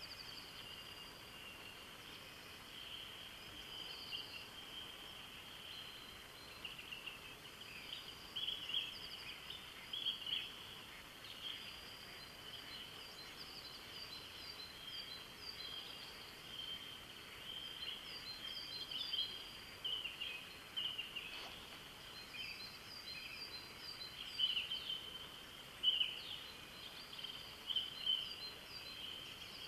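Dawn chorus of many songbirds: a dense mix of chirps and rapid trills over a steady wash of distant song, with louder nearby calls standing out now and then, busier in the second half.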